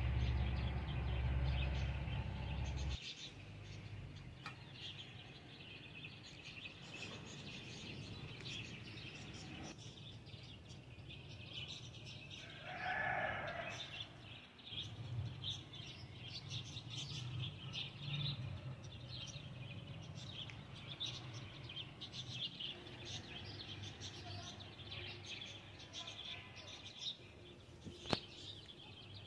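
Small birds chirping and twittering continuously in the background, with one louder pitched call about thirteen seconds in. A low hum sounds for the first three seconds, and a single sharp click comes near the end.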